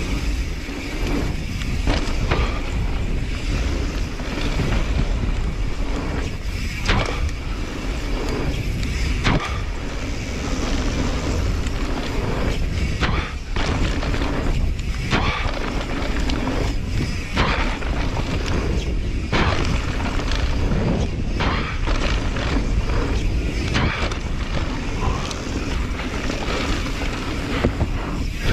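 Mountain bike running fast down a dirt downhill trail: a steady rush of wind on the microphone and tyre noise on dirt, with frequent short rattles and knocks from the bike over bumps.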